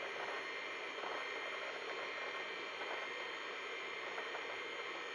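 Seagate ST-251 MFM hard drive seeking as the PC boots DOS from it: faint irregular clicks over a steady hiss with a faint high whine.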